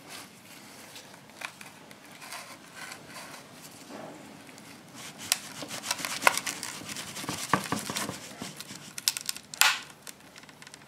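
Crackling and small sharp clicks as a strip of peel ply is worked back and forth under a moulded composite tailplane to free it from its mould, getting busier about halfway through. A louder snap comes near the end.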